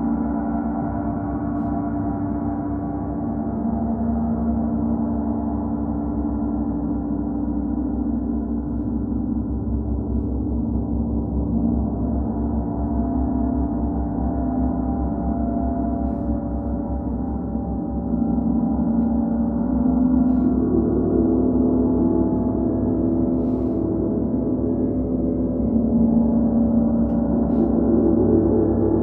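Gong played in a continuous wash of sound during a gong bath: a sustained drone of many overlapping tones with no distinct strikes, swelling louder about eighteen seconds in and again near the end.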